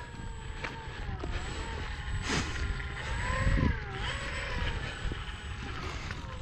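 Electric motor and propeller of a Dynam C-188 Air Tractor RC model taxiing, a faint whine that rises and falls with the throttle, over low wind rumble on the microphone.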